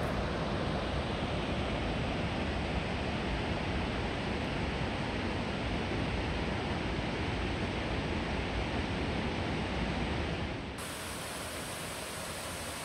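Steady rushing noise with a heavy low rumble, which cuts abruptly near the end to the brighter, even hiss of a small waterfall.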